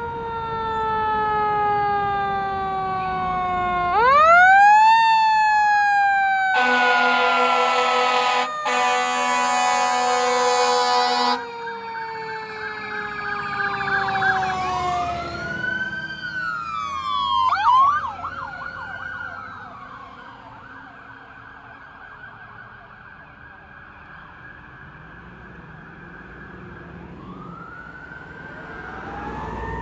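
Fire apparatus sirens: a siren climbs sharply in pitch about four seconds in, then winds slowly down over many seconds, while a loud air horn blasts for about five seconds, broken once. Faster wailing siren sweeps follow as the ladder truck and chief's vehicle pass, then the sirens fade and swell again near the end.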